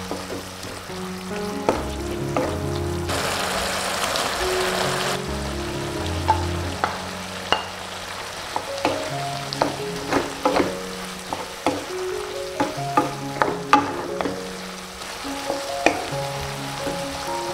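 Vegetables sizzling as they stir-fry in a nonstick wok, with many sharp clicks and scrapes of a wooden spatula against the pan. A louder burst of sizzling comes about three seconds in. Background music runs underneath.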